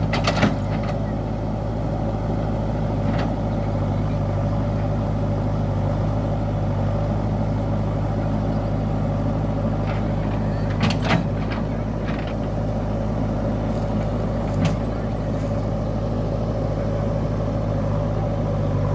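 Diesel engine of heavy earthmoving machinery running steadily, with a few sharp knocks, two of them close together about eleven seconds in.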